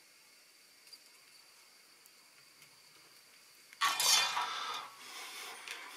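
Near silence for almost four seconds while soldering on a circuit board, then a sudden rustle and clink of tools, wires and the board being handled and set down on the workbench, continuing as quieter irregular handling noise.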